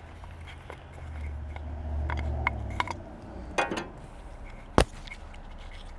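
Small clicks and scrapes of hands working a fuel filter housing and its fittings, with one sharp click about three-quarters of the way through. A low rumble swells and fades in the first half.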